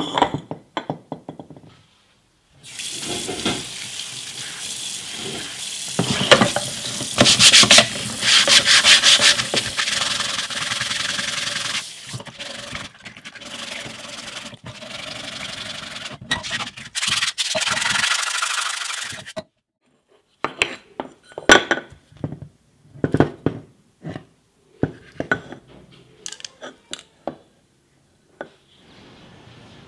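Ribbed aluminium housing cover of a Bosch GSH 5 E demolition hammer being scrubbed by hand with an abrasive pad: a continuous rubbing of back-and-forth strokes that stops about two-thirds of the way through. After it come scattered short knocks and taps of the metal parts being handled and set down.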